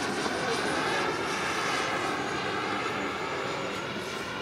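Small scratchbuilt gas-turbine engine (about 9 kg thrust) of a 1/9.5-scale RC Saab 37 Viggen model jet, a steady turbine whine and rush as it flies overhead, slowly fading as it moves away.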